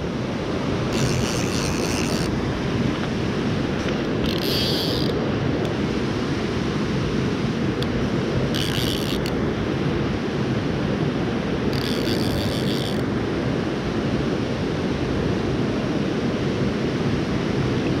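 Shallow mountain stream rushing steadily over stones, heard close to the water. Four short, higher-pitched rasping bursts stand out over it, about a second long each.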